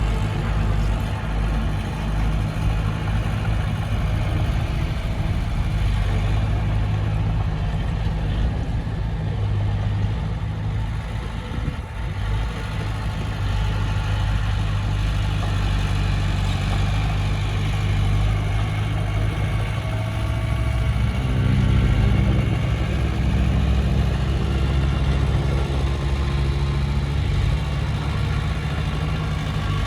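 Diesel engine of heavy earthmoving equipment running steadily under light load. Its pitch and loudness change about two-thirds of the way through.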